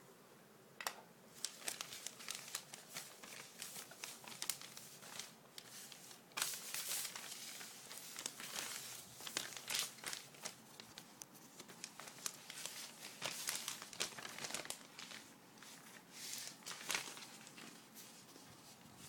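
Packaging crinkling and rustling in irregular bursts as hands unpack a toy airport set, with now and then a tearing sound.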